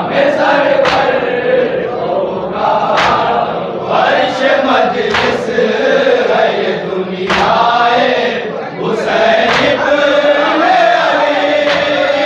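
A group of men chanting a nauha (mourning lament) together, with sharp chest-beating slaps (matam) about every two seconds.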